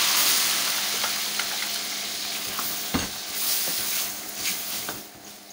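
Yogurt-marinated liver pieces sizzling in hot oil in a karahi while a slotted spoon stirs them, scraping and clicking against the metal pan with a sharp knock about three seconds in. The sizzle is loudest at first, just after the wet marinade hit the hot oil, and dies down toward the end.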